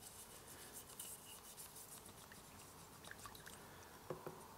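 Faint scrubbing of a toothbrush on a steel strip held under water in a plastic tub, brushing off loosened rust, with small water sounds and a soft tap about four seconds in.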